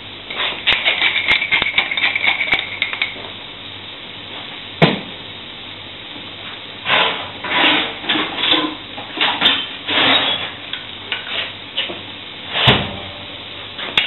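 Stuffed, rolled chicken breast sizzling in hot oil and butter in a steel frying pan, with metallic clinks and a ringing clang in the first few seconds, a sharp knock about five seconds in, louder bursts of noise from about seven to eleven seconds, and a heavy thump near the end.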